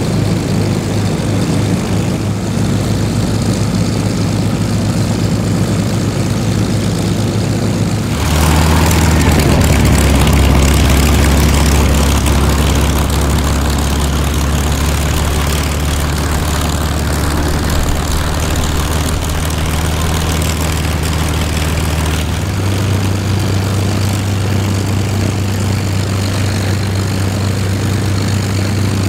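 A Curtiss P-40E Kittyhawk's Allison V-1710 V-12 runs at idle while taxiing, then about eight seconds in it gives way to a deeper, louder idling Merlin V-12 in another WWII fighter. The Merlin's note shifts about two-thirds of the way through.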